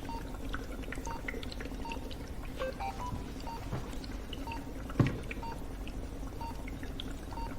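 Bedside patient monitor beeping steadily, a short electronic beep about once a second over a low steady hum. A single sharp knock sounds about five seconds in.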